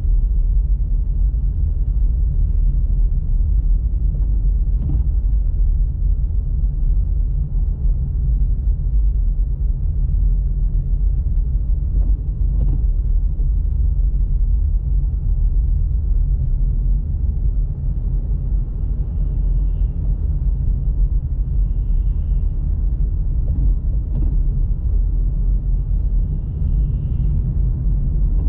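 Steady low rumble of a car on the move: engine and road noise with no change in pace, and a few faint clicks.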